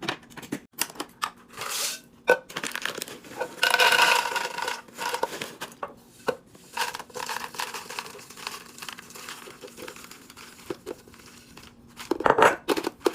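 Plastic packaging crinkling and tearing as it is opened, with irregular clicks and knocks from items being handled. The longest, loudest tearing comes about four seconds in, and a cluster of sharp clicks comes near the end.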